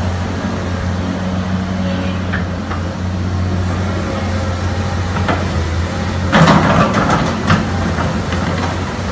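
Excavator diesel engine running steadily, with a few scraping knocks of the bucket in the soil about six and a half to seven and a half seconds in.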